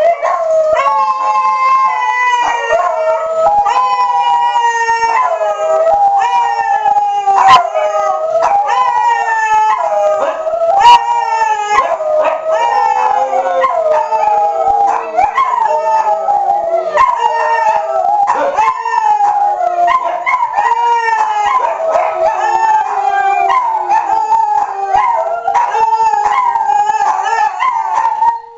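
A pack of pet dogs, among them a Siberian husky and a beagle, howling together in overlapping howls that slide up and down in pitch, with a hound's shrill yelping mixed in. Under them runs a steady tone from the tornado siren test that they are howling along to.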